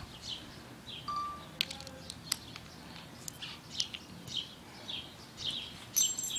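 A small bird chirping over and over, a short, high, falling chirp about twice a second, with a few sharp clicks.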